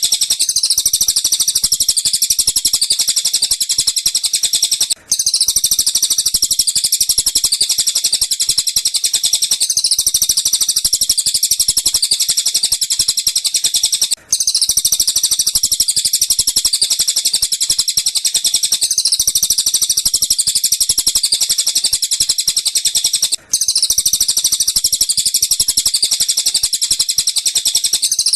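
Recorded bird calls: a dense, fast, high-pitched chattering trill that repeats continuously as a loop, broken by a brief silent gap about every nine seconds.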